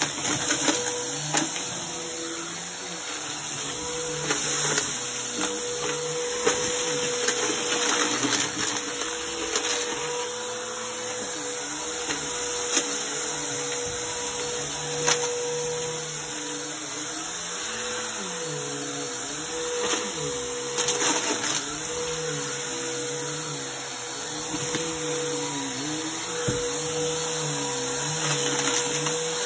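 Upright bagless vacuum cleaner running on carpet and sucking up bottle caps, buttons, coins and rice, which rattle and crunch loudly as they are drawn into the machine. The motor's pitch wavers as the load changes, with frequent sharp clicks of hard objects hitting inside.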